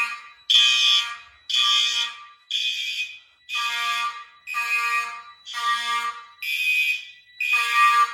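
Fire alarm horns sounding off the control panel in steady repeated blasts, about one a second, each a harsh buzzy tone.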